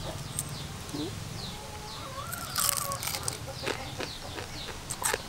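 Yard birds and chickens: small birds chirping in short falling notes, and a chicken's drawn-out call about two and a half seconds in, with a few scattered clicks over a low steady background hum.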